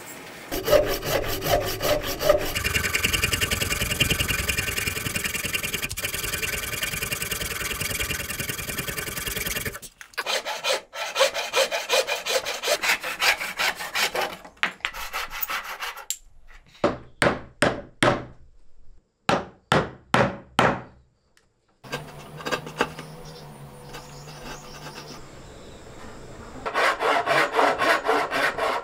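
Traditional wooden frame saw cutting through a timber block by hand, in runs of quick back-and-forth strokes. Around the middle the strokes come one at a time with short pauses. After a quieter stretch, fast sawing resumes near the end.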